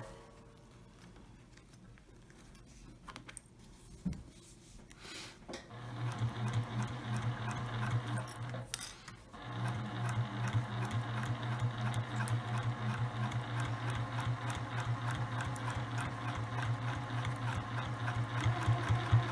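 Electric domestic sewing machine stitching a straight seam through fabric, its motor humming and the needle ticking in a rapid even rhythm. It starts about six seconds in, stops briefly a few seconds later, then runs on steadily.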